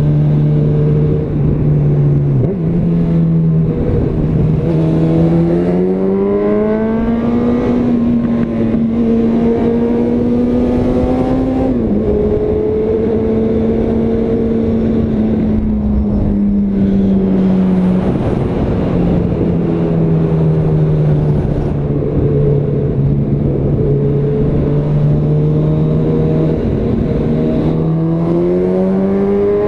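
Honda CB1000R's inline-four engine with a Yoshimura exhaust, under way on the road: its pitch climbs under throttle about five seconds in and again near the end, and falls back in between as the throttle eases, over a steady rush of wind noise.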